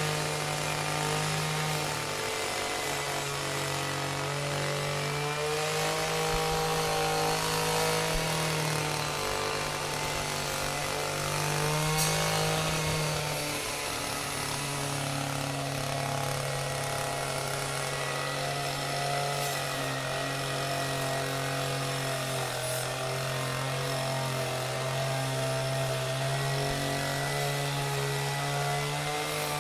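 Chainsaw running continuously, its engine pitch rising and falling slightly as the throttle varies.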